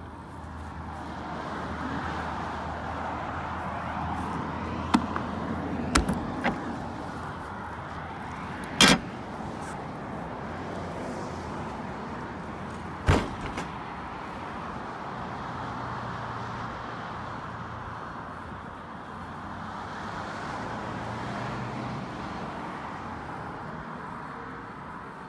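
Several sharp metallic knocks and clanks from a Sundowner aluminium horse trailer's door latch and door as it is opened and someone steps inside, the loudest about nine and thirteen seconds in, over a steady rushing noise.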